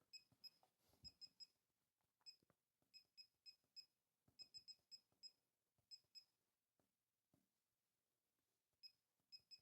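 Faint, short electronic key-click beeps from a laser projection virtual keyboard as keys are tapped on its projected layout. About twenty of them come in uneven runs, the rhythm of someone typing.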